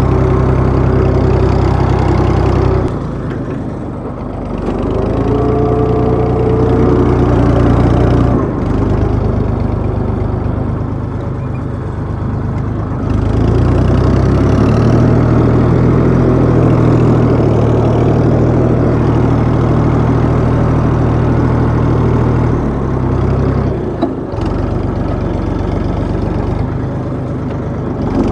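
Tractor engine working hard while the tractor is stuck in deep mud, its rear wheel spinning and churning. The engine speed falls and rises several times, strongest over the middle stretch.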